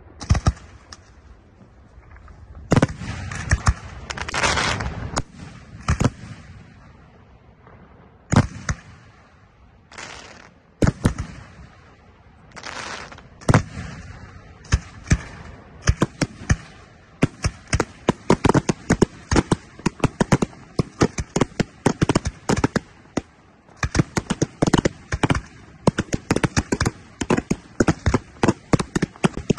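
Aerial fireworks shells bursting in the sky with sharp bangs, spaced a second or two apart at first, then from about halfway through coming in a rapid, dense barrage of many reports a second.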